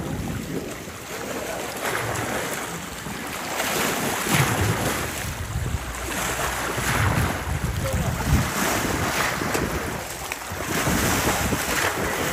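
Wind buffeting the microphone in uneven gusts over a steady rush of water and waves.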